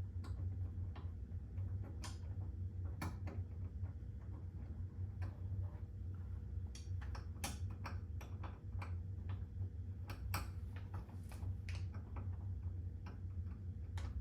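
Scattered light clicks and taps of screws and a metal TV-mount bracket being handled and screwed onto the back of a TV, over a steady low hum.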